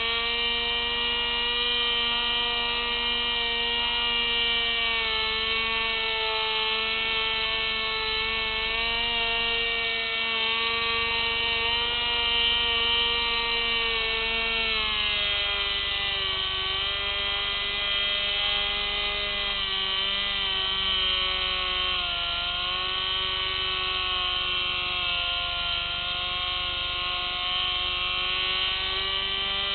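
Electric motor and propeller of an FPV model aircraft whining steadily, heard from on board. The pitch drops slightly about halfway through and wavers up and down after that.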